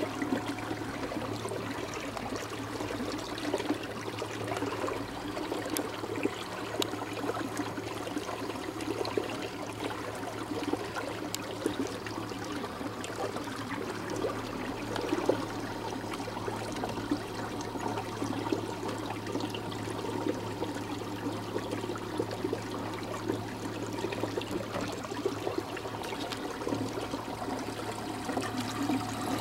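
Water splashing and trickling against a boat hull, with a steady low motor hum underneath.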